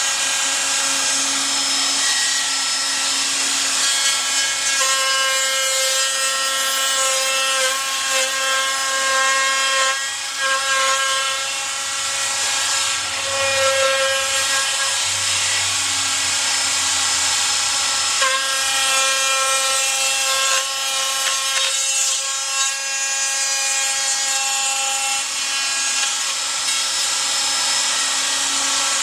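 Electric wood router with a roundover bit running at speed and cutting wood along a template: a steady high whine over the hiss of the cut, shifting slightly every few seconds as the cut changes.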